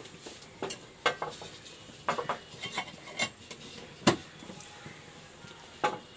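A kitchen utensil knocking and scraping against a frying pan while butter is spread around it: a string of short irregular knocks, the loudest about four seconds in.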